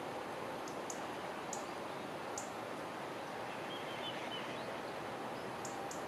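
Shallow river running over stones, a steady rushing sound. Short high bird chirps come through it now and then, with a quick run of them near the end.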